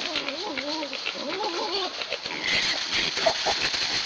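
Feral hogs and piglets grunting, with wavering pitched calls in the first two seconds. Underneath is crackling and rustling of dry leaf litter as they root and feed.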